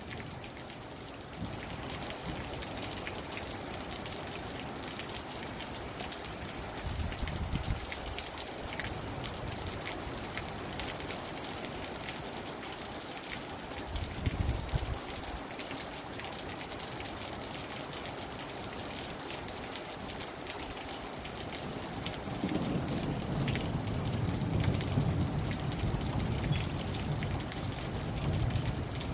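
Steady rain falling, with single drops ticking close by. A few low rumbles come and go, the longest over the last several seconds.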